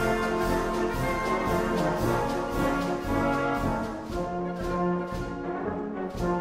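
Orchestral music led by brass, with held chords over a steady beat.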